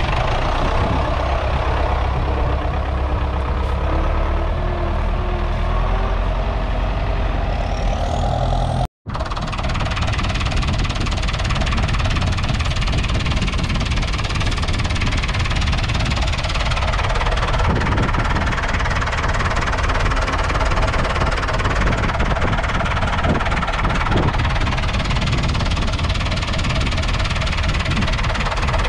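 David Brown 996 3.6-litre four-cylinder diesel tractor engine idling steadily with a diesel knock. The sound cuts out briefly about nine seconds in, then resumes unchanged.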